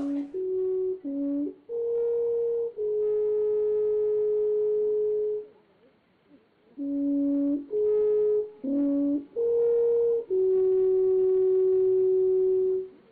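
A slow horn melody in two phrases: a few short notes stepping up and down, each phrase ending on a long held note.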